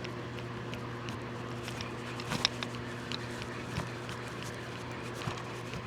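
A steady low motor hum, with scattered light clicks and knocks of handling in an aluminum boat; the sharpest knock comes about two and a half seconds in.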